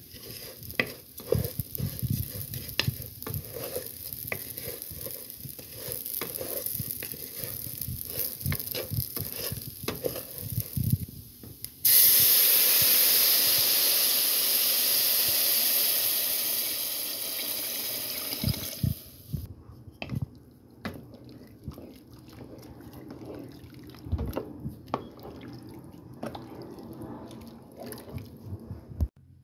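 Uncooked rice grains rattling into a pot. About twelve seconds in, a tap runs hard onto the rice for about seven seconds, slowly getting quieter as the water rises. After that the rice is swished in the water, rinsing it, with light clicks and splashes.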